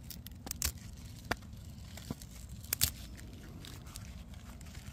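Lettuce leaves being snapped and torn off the plant by hand: several sharp, crisp snaps with rustling, the loudest nearly three seconds in.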